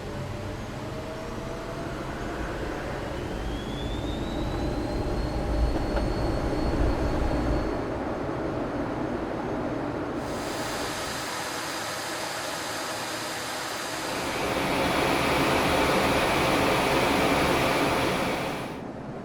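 Cessna CJ4 business jet's Williams FJ44 turbofan engines in a string of recordings that cut abruptly from one to the next. In the first part a turbine whine rises in pitch and then holds steady over a low rumble, as an engine spools up; later clips are steady jet engine noise, the loudest near the end.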